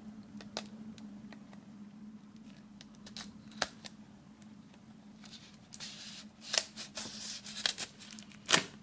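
A few light clicks and taps, then, from about six seconds in, crinkling and scratching bursts as a serrated knife cuts into the plastic shrink-wrap on a CD case. A faint low hum sits underneath.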